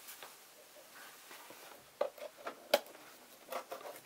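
Hands handling a shrink-wrapped cardboard model kit box: faint rustles and a few light taps and clicks, with one sharper tap about two-thirds of the way through.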